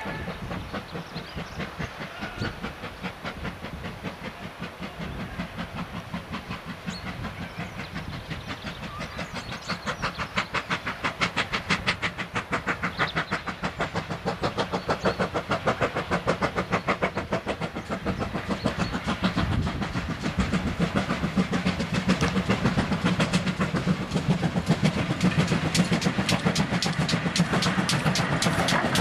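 GWR 2884-class 2-8-0 steam locomotive No. 3850 working its train up the Watchet incline, with a fast, regular chuffing exhaust. The beats grow steadily louder as it approaches and draws close.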